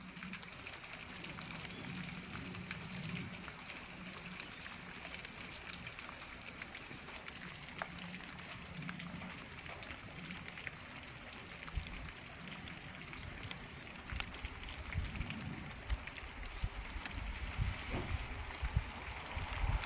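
Outdoor background ambience: a steady hiss with scattered faint ticks, and low rumbling that comes in surges from about halfway through and grows toward the end.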